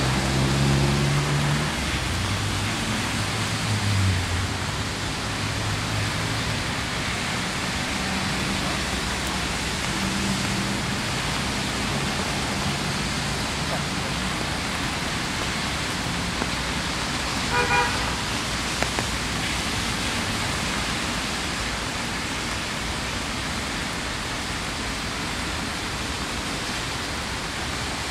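Steady rain falling, with city traffic behind it: a vehicle engine passes in the first few seconds, and a car horn gives a couple of short toots about two-thirds of the way through.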